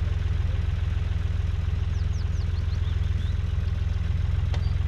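Classic Ford tractor engine idling steadily with a deep, even low throb.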